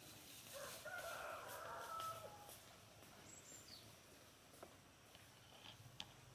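A rooster crowing once, faint, one call of about two seconds starting about half a second in.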